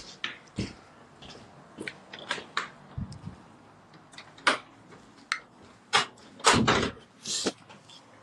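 Irregular clicks and knocks of objects being handled in a small room, with a louder thud about six and a half seconds in and a short hiss just after it.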